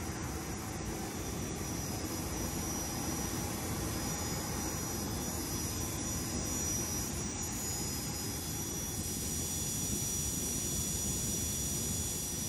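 Steady jet aircraft noise on an airport apron: a continuous rumble with faint high whining tones over it.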